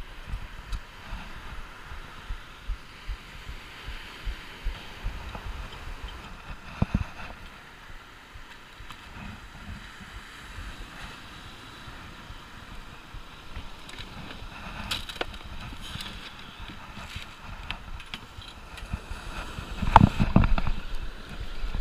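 Surf washing on the beach under a steady rushing background, with scattered small knocks and clicks of fishing gear being handled, and a louder cluster of thumps near the end.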